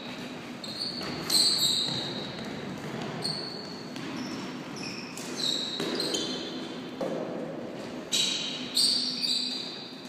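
Floorball play in a sports hall: sneakers squeaking on the court floor and plastic sticks clacking against the ball and each other, several sharp bursts scattered through, ringing in the large hall.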